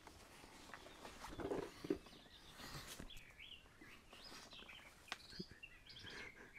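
Birds chirping faintly, in short curving calls from about halfway through, with a few soft knocks and rustles from someone clambering through a window frame.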